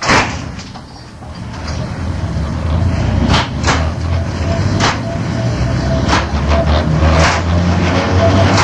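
Ex-London Underground Standard tube stock electric train (Isle of Wight Class 485/486) running, its low rumble and motor tones growing louder over the first few seconds after a sharp clunk at the very start. Several sharp clicks come through the running noise, two close together near the middle.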